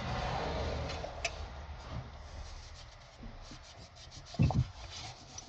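A rag rubbing over a metal car ashtray as it is wiped down with WD-40, followed by a few light clicks of handling and a low thump about four and a half seconds in.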